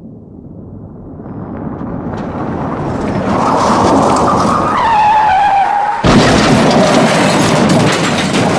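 Car crash sound effect: a car approaches with rising noise, its tyres screech in a skid with a falling squeal, and about six seconds in it hits with a sudden loud impact followed by crashing debris.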